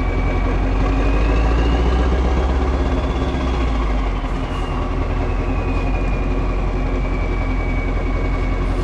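Mack E9 V8 diesel of a Renault Magnum truck running through an open exhaust pipe, low and steady. A thin turbo whistle rises in pitch over the first few seconds and slowly falls back.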